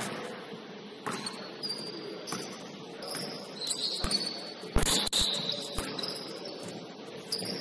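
Basketball game on a gym court: sneakers squeaking on the hardwood floor in short high chirps, and a ball bouncing with sharp thuds, several together about five seconds in.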